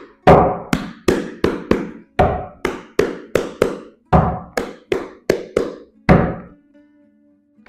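Tarot card deck knocked repeatedly, a fast series of short thunks about three a second, some in quick pairs, that stops about a second before the end.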